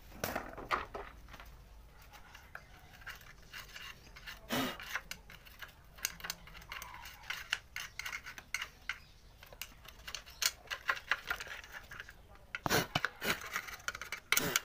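Irregular small metal scrapes, clicks and taps of a screwdriver worked against the rear shock's lower mounting point on a scooter's swingarm, cleaning it off, with a cluster of sharper metal clicks near the end.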